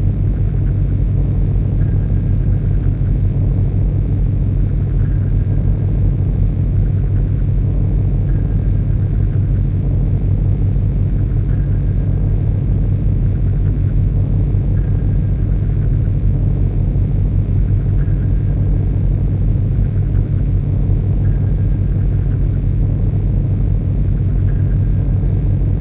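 Harsh noise music: a loud, dense low rumble with a fast, grainy flutter. A faint short high tone recurs about every three seconds.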